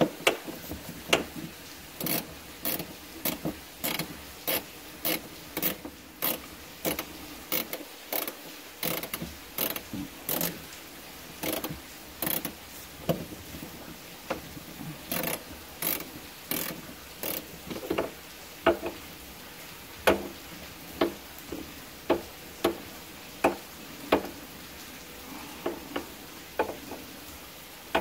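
Hand ratchet wrench clicking in a steady run, about two sharp clicks a second, then slower and more spaced out over the last third.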